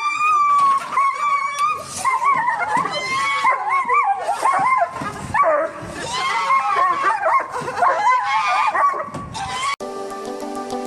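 A dog whining and yipping: many short, high cries that waver in pitch, one after another. Music cuts in near the end.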